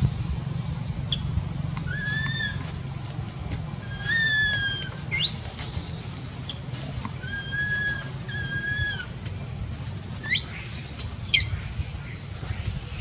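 Short, clear whistled animal calls: several flat notes about half a second long and a few sharp upward-sweeping whistles, scattered through, over a steady low rumble.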